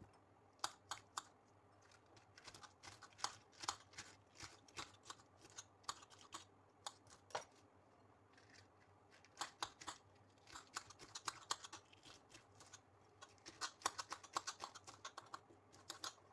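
Kitchen knife chopping cabbage on a cutting board: irregular runs of sharp, light taps, with a pause of about two seconds midway.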